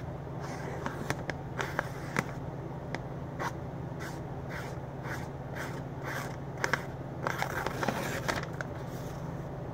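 Arkansas Infidel knife blade slicing through a sheet of lined notebook paper: a dozen or so short, crisp slicing strokes, coming faster and bunched together near the end. A steady low hum runs underneath.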